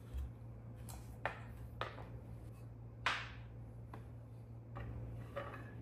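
Wooden parts of an acacia step stool knocking and clicking together as the legs and rails are handled and fitted, a few separate knocks with the loudest about three seconds in, over a steady low hum.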